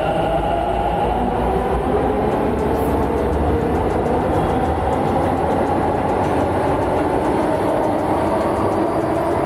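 Bangalore metro train running past along a station platform: a loud, steady rushing rumble of the cars on the track, with a faint held whine.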